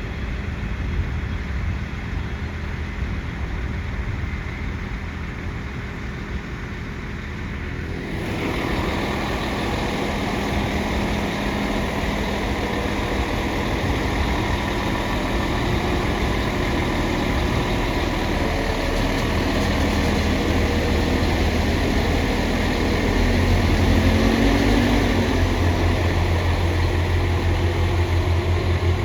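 Diesel train engine running steadily, growing louder about eight seconds in, with a deep rhythmic throb near the end.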